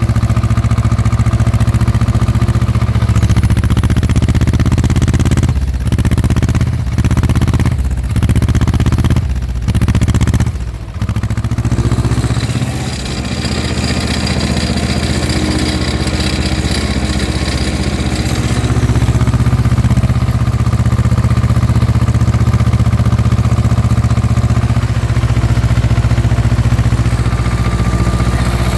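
Ursus C330M tractor's two-cylinder diesel engine running steadily while ploughing, with a few brief dips in level between about six and eleven seconds in before it settles back to an even run.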